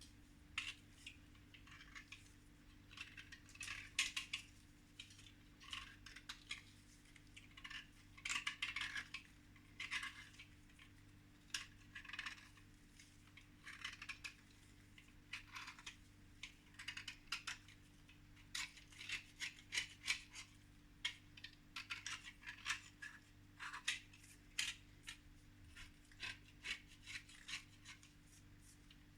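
Light scraping and scratching strokes in irregular bursts of quick strokes, over a faint steady hum.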